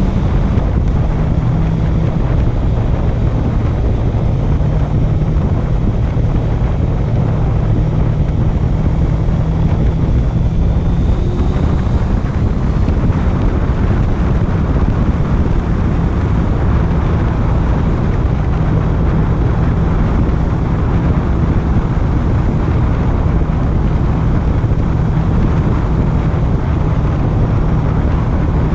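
Honda CB650F's inline-four engine running steadily while riding, its note shifting slightly with throttle. Wind noise rushes over the microphone throughout.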